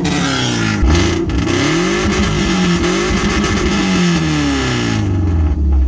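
Subaru Outback engine revving repeatedly through an exhaust with the muffler cut off, the pitch rising and falling several times.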